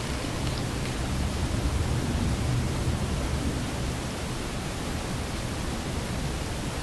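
Steady background noise of a night-time field recording: an even hiss with a heavier low rumble underneath, and a couple of faint ticks just under a second in.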